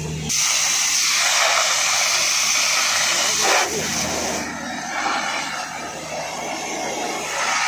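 Fire hose spraying a jet of water into a burnt-out car, a loud steady hiss that starts suddenly, eases about four and a half seconds in and swells again near the end.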